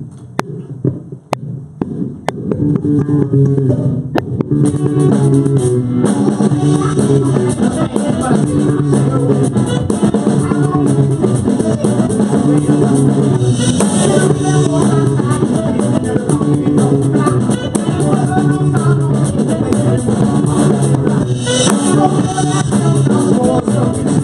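Live rock band with electric guitar, bass and drum kit: a sparse intro of low notes with a few sharp hits, then the full band comes in about four and a half seconds in and plays on steadily.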